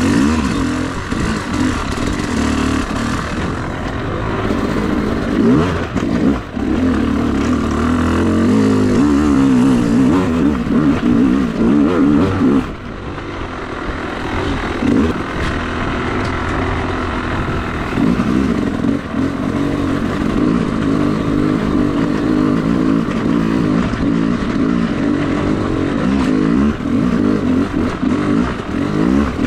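Yamaha YZ250 two-stroke dirt bike engine running under riding load, revving up and easing off repeatedly as it works along a trail, with a sharp drop in throttle about halfway through.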